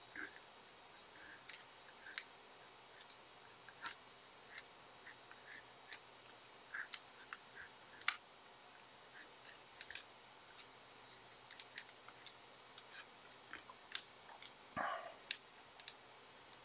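Pencil scratching and tapping on paper in short, irregular strokes during sketching, with one longer stroke near the end.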